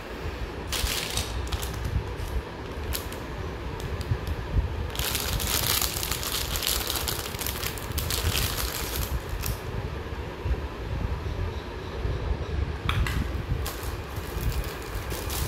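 Crinkling of a plastic wrapper for a few seconds in the middle, with a few light clicks of art supplies being set down on a hard counter, over a steady low rumble.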